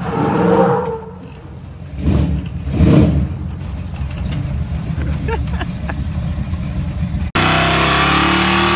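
Old pickup truck engine revving hard about two to three seconds in, then running steadily. Just past seven seconds it cuts abruptly to a 1949 GMC pickup's engine running loud and steady at raised revs.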